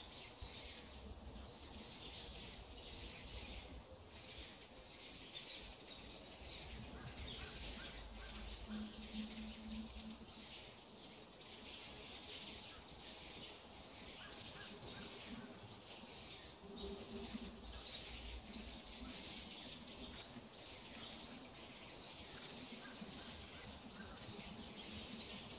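Faint high chirping of wildlife, repeating every second or so, over a low rumble that comes and goes.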